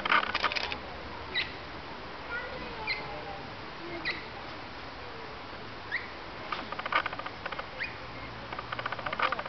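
Short high-pitched animal chirps, one every second or so, with bursts of rapid clicking near the start and again toward the end.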